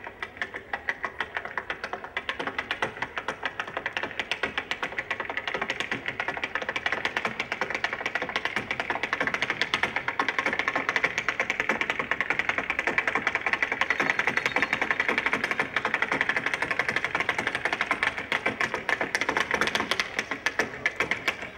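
Rapid, dense tapping clicks in a fast continuous run, growing louder over the first few seconds and then staying loud.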